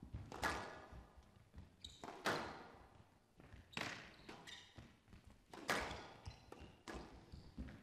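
Squash ball struck hard by rackets and smacking off the court walls during a rally: five sharp cracks, about one every second and a half, each with an echoing tail. Short squeaks of court shoes come between the hits.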